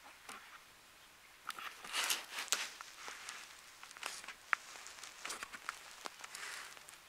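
Irregular close rustling and sharp little clicks, with a louder burst of rustling about two seconds in and a single sharp click a little after four seconds.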